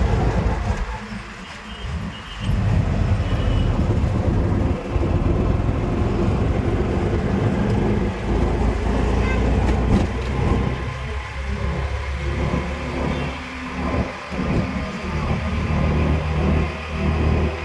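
Traffic and road noise heard from an open rickshaw riding along a city road: a steady, fairly loud rumble, dipping briefly about two seconds in.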